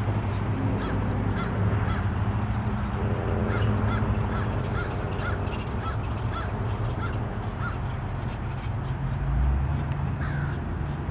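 A bird calling a run of short, evenly repeated notes, about three a second, which stop about eight seconds in, over a steady low rumble.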